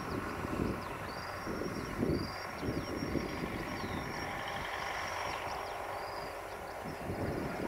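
Distant UTB U650 tractor's four-cylinder diesel engine running steadily as it pulls a disc harrow, with gusts of wind buffeting the microphone. Short high chirps, like small birds, repeat throughout.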